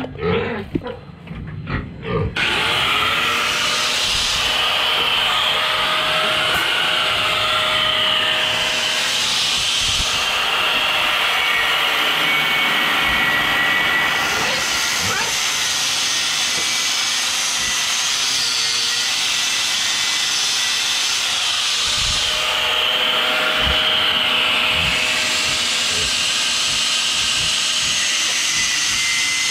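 Electric angle grinder with a cutting disc cutting through a rusty steel pipe. It starts about two seconds in and runs steadily, its whine shifting in pitch a few times as the disc bites into the metal.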